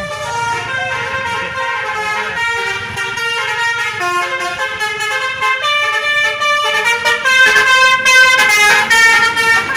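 Bus telolet horn (Basuri multi-tone air horn) playing a tune of stepped notes, several tones sounding together and changing every few tenths of a second. It is loudest from about seven seconds in.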